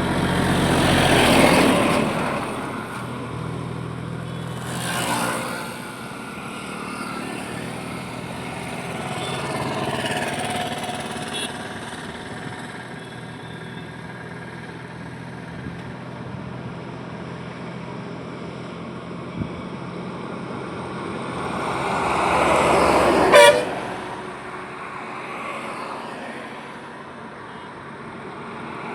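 Highway traffic: vehicles passing one after another, each swelling and fading, the loudest at the very start. A single short horn toot sounds from a passing vehicle near the end.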